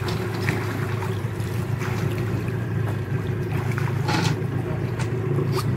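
A boat's outboard motor running steadily, with a couple of short knocks or splashes near the end.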